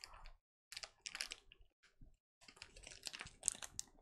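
Plastic candy-bar wrappers crinkling as they are handled, in two spells of faint crackling, the second starting about halfway through.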